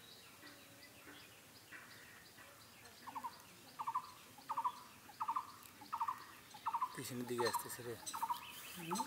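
A bird calling over and over: short pulsed notes about one every two-thirds of a second, starting about three seconds in and growing louder. A lower, voice-like sound joins from about seven seconds.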